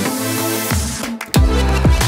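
Electronic background music: a rising swell of noise, a short break, then a heavy bass drop about two-thirds of the way in.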